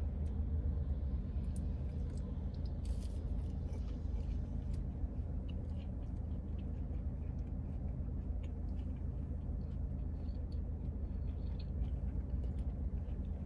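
Steady low hum of a car running while parked, heard from inside the cabin, with faint chewing and small scattered clicks of food and packaging being handled.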